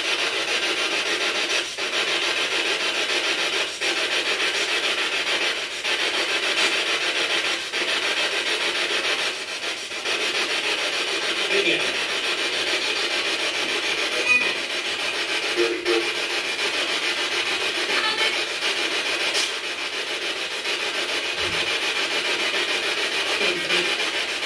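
Spirit box sweeping through radio stations: a steady loud hiss of radio static, broken by brief dropouts about every two seconds, with a few short snatches of tone.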